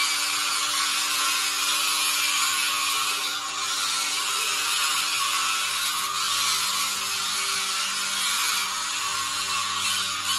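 Small electric motors and plastic gearbox of a toy remote-control transforming robot car whirring and grinding steadily as it drives and moves its arms and doors between robot and car form.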